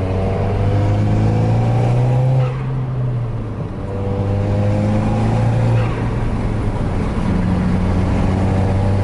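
Volkswagen Mk6 GTI's turbocharged 2.0-litre four-cylinder with an upgraded K04 turbo pulling hard, revs climbing twice and dropping when the throttle is lifted, heard from inside the car. The turbo flutters on lift-off, and the clutch is slipping pretty bad under the load.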